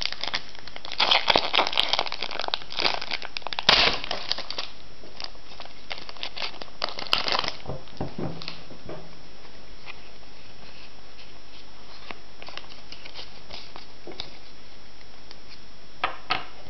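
Foil wrapper of a Pokémon TCG booster pack crinkling as it is torn open and handled. The crinkling is densest for a few seconds near the start, thins to scattered crackles, and comes back briefly near the end.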